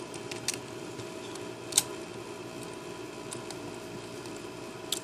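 Plastic Lego pieces clicking and tapping against each other a few times, the sharpest click just under two seconds in, over a steady background hum.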